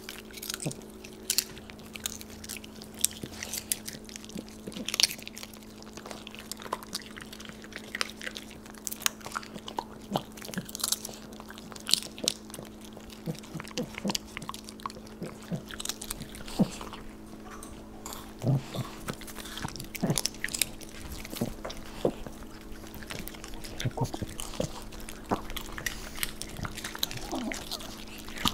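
Several dogs chewing popcorn: irregular, quick crunches and mouth clicks, some sharper than others, over a faint steady hum.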